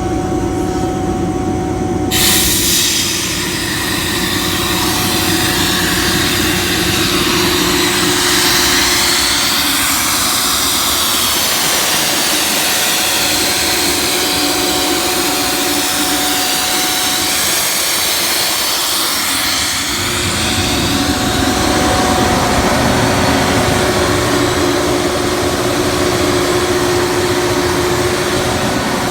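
Ingersoll Rand 40 hp rotary screw air compressor running with a steady hum and whine. About two seconds in, a loud rush of hissing air starts suddenly and carries on.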